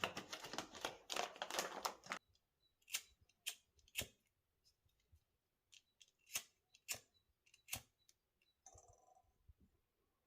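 A coffee scoop scraping and rustling ground coffee for the siphon brewer for about two seconds. Then come several separate sharp clicks and taps, a second or so apart.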